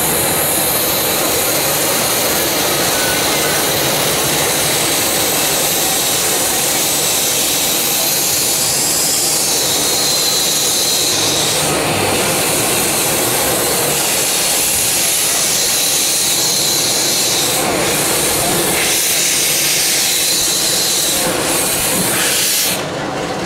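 Steady loud hiss of steam escaping from a 1922 Vulcan 2-4-0 tank steam locomotive, venting low at the front by its cylinders. The hiss cuts off suddenly near the end.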